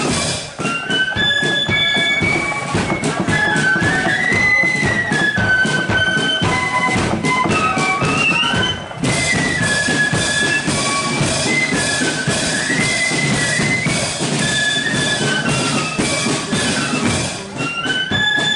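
A marching flute band playing a tune in unison, the high flute melody over a steady drum beat, with a brief break in the tune about nine seconds in.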